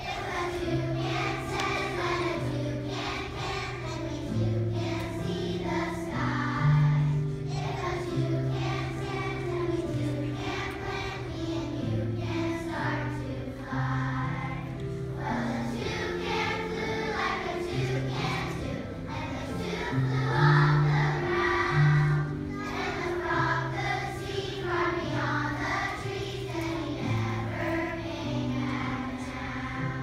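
Large group of young children singing a song together over an instrumental accompaniment with held low notes.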